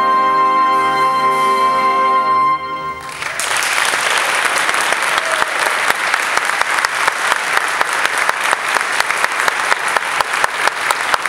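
A big band of saxophones and brass holds a sustained final chord, which cuts off about two and a half seconds in. Audience applause follows and continues steadily.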